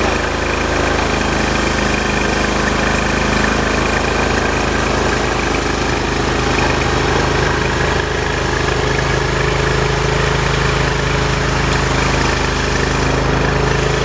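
Portable band sawmill's engine running steadily at a constant speed.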